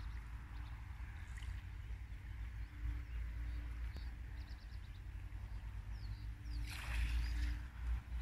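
Wind rumbling on the microphone, with a few faint short bird calls and a louder rush of noise about seven seconds in.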